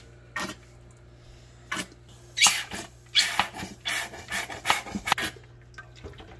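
Cooking oil glugging out of a plastic bottle and splashing into a nonstick pan, in a run of irregular gurgling splashes, a few at first, then thick and loudest from about two and a half to five seconds in.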